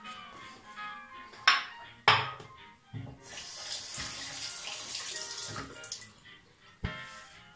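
Tap water running into a bathroom sink for about three seconds. Before it come two sharp knocks, and another knock comes near the end.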